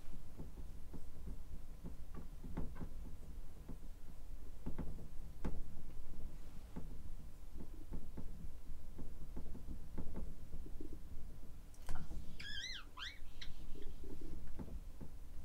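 Marker pen writing on a whiteboard: a run of light taps and scratchy strokes, with one short squeak of the tip about twelve seconds in.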